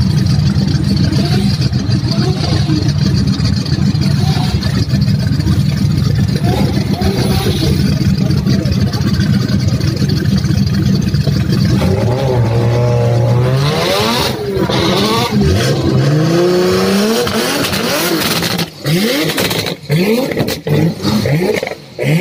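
Drift cars' engines running loud and steady at first, then from about halfway through revving again and again, the pitch rising and falling quickly, with several sudden breaks in the sound near the end.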